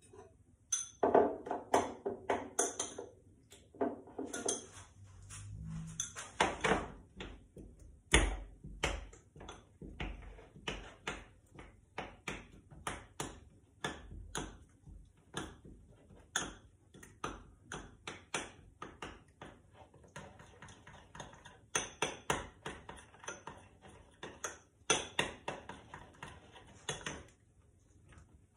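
A metal teaspoon clinking and scraping against a small glass bowl while stirring chocolate melting into cream, in quick, irregular taps, thicker near the end.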